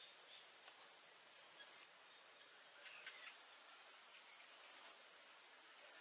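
Insects chirring in a high, steady pitch, in stretches of a second or so with short gaps, with a few faint clicks near the middle.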